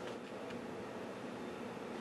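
Steady hiss, with two faint clicks in the first half-second.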